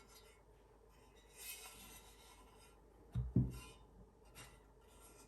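Handling of a heavy metal speaker stand: a brief rustling scrape, then two dull thumps in quick succession about three seconds in, and a light click.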